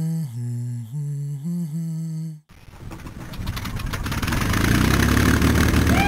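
A slow hummed, chant-like melody that cuts off abruptly after about two and a half seconds. A DJI Mavic Pro quadcopter's propellers then start whirring and grow steadily louder to the end.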